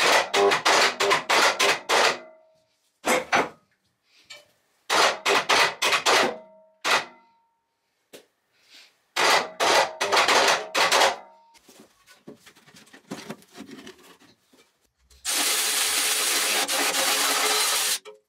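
Rapid metallic clanking and knocking of a spanner and steel parts against a Ransomes crawler's gearbox housing, in four quick clusters with brief ringing, then a few scattered light clicks. Near the end a power tool runs steadily for about three seconds.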